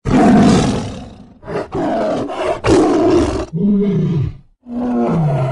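A tiger roaring: one long roar, then a run of shorter roars in quick succession, then two shorter calls that drop in pitch near the end.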